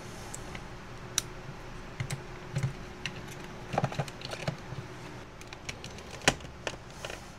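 Small clicks and taps of a 9-volt battery being snapped onto its clip and pressed into a plastic battery compartment, then the plastic compartment cover sliding shut. The sharpest click comes about six seconds in.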